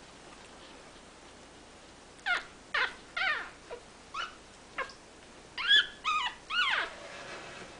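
Seventeen-day-old pug puppy squealing and whimpering: a run of about eight short, high-pitched cries starting about two seconds in, several falling in pitch, loudest in the second half.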